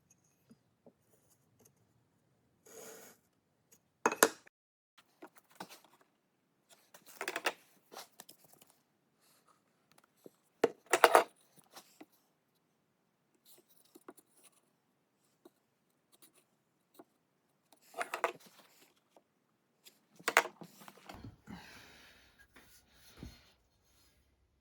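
Wood and hand tools being handled and worked: a series of separate short scrapes and knocks with quiet gaps between them, the loudest about a dozen seconds apart.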